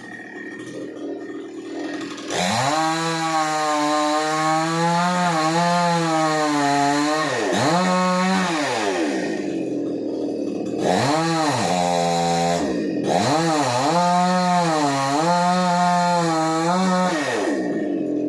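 Chainsaw engine running at high revs, starting about two seconds in, its note wavering under load as it cuts. The revs drop off and climb back up twice around the middle, and it stops shortly before the end.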